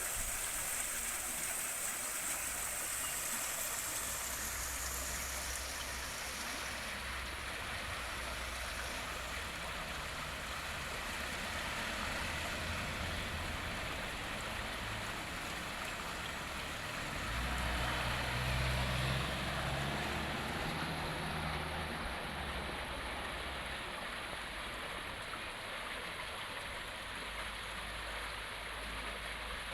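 River water flowing steadily over rocks, with a low rumble that swells for a few seconds past the middle.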